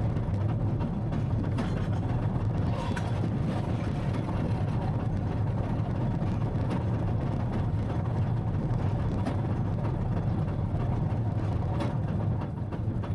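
Farm tractor engine running steadily under load, with scattered clicks and rattles from the machinery.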